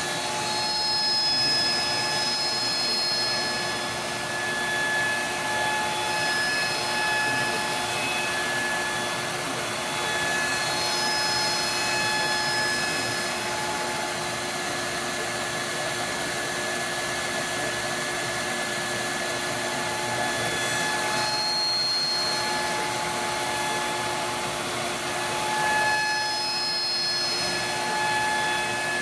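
AVID CNC router spindle driving a Slab Slayer surfacing bit as it face-mills a warped aluminum cylinder head flat. A steady rushing noise carries a constant hum, with higher whine tones that come and go as the bit moves across the head.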